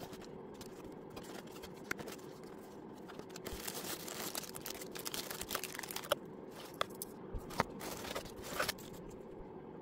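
Tissue paper and plastic bags rustling and crinkling as a cardboard craft-kit box is unpacked by hand, with irregular sharp crackles and small knocks, busiest from about a third of the way in.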